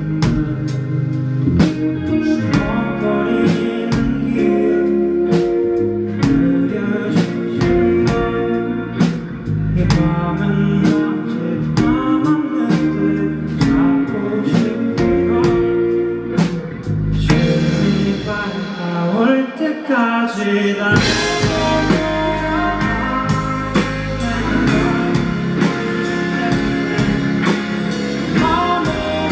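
Live rock band playing a song with singing, electric guitars and a steady drum beat. About 17 seconds in the bass and drums drop out under a rising build, and the full band comes back in about 21 seconds in.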